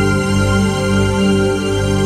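Electronic keyboard played live: slow, held chords with a soft, sustained tone.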